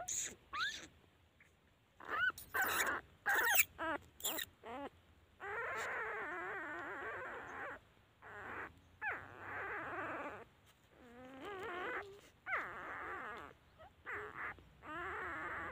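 Litter of newborn puppies whimpering and squealing: short, sharp rising squeaks in the first few seconds, then longer stretches of several pups crying at once, broken by short pauses.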